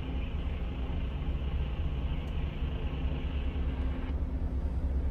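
Heavy truck's diesel engine running steadily at idle, a low rumble with a steady hum. A higher hiss over it stops about four seconds in.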